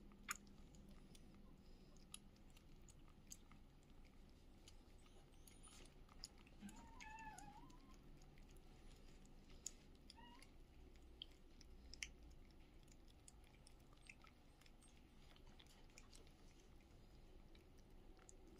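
Two cats eating wet cat food from a plastic bowl: faint, scattered chewing and licking clicks. A short, faint wavering cry comes about seven seconds in.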